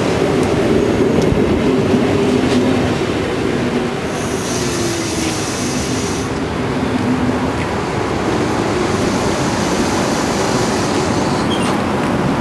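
A train passing close by: the steady running noise of wheels on rails, with squealing tones and a high-pitched squeal from about four to six seconds in.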